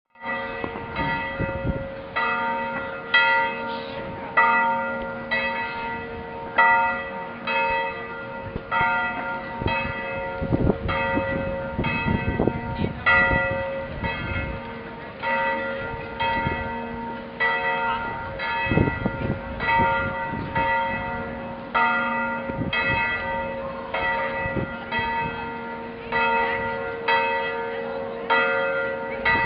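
Church bells ringing: strike after strike, roughly one a second, each tone ringing on under the next so that several pitches overlap.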